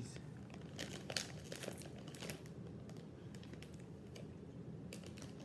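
Combos snack bag crinkling in a few short rustles, mostly in the first couple of seconds and again near the end.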